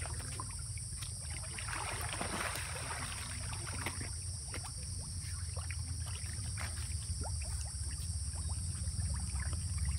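A crowd of fish splashing and slapping at the water's surface in the shallows, in scattered short splashes with a brief burst of churning about two seconds in. Under it run a steady low rumble and a steady high drone.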